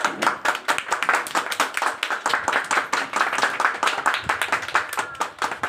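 A small group of people clapping their hands in steady applause, many quick overlapping claps, fading away near the end.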